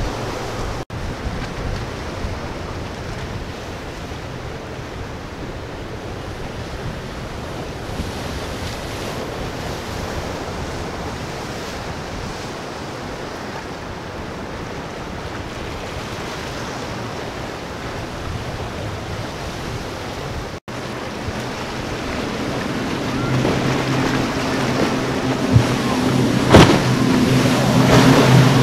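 Wind and rushing surf as boats run through rough inlet water, with brief cuts in the sound. In the last several seconds a powerboat's outboard engines drone steadily and grow louder as it passes close, with a couple of sharp knocks near the end.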